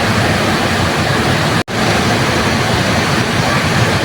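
Waterfall rushing in a steady, even roar of falling water, cut by a momentary dropout to silence about a second and a half in.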